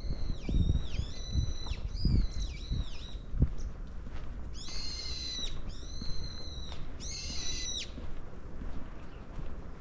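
A bird calling repeatedly: shrill, high-pitched calls, each rising then falling in pitch, about seven of them in two short runs with a pause between.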